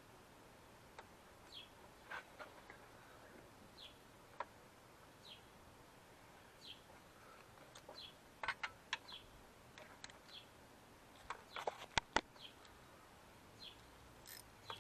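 A bird chirping over and over, short high chirps about once a second, with a few sharp clicks from parts being handled in the engine bay, loudest about twelve seconds in.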